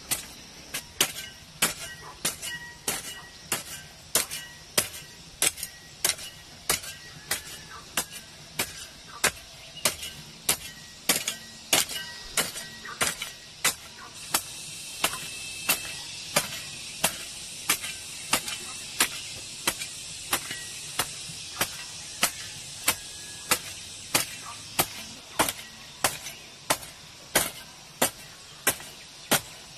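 A hoe striking dry, clumpy garden soil over and over in a steady rhythm, close to two sharp knocks a second. A high hiss swells in the middle and fades again.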